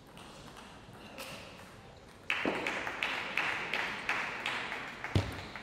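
Table tennis ball bounced repeatedly on the table, about three bounces a second starting a little over two seconds in, each tick ringing in the hall; one heavier thud near the end.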